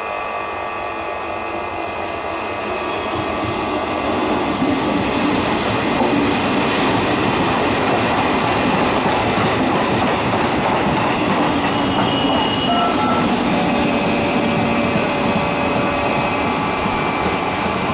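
Electric multiple-unit suburban train rolling slowly past, a steady rumble of wheels on rail that grows louder over the first few seconds as the coaches come alongside. Past the middle there are a few brief squealing tones from the wheels.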